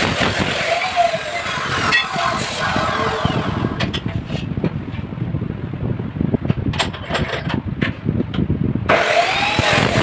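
Abrasive chop saw cutting through steel tube with a harsh grinding whine. About four seconds in the cutting stops, and sharp metallic clanks and knocks follow as the steel is shifted and clamped in the vise. The saw cuts again about nine seconds in.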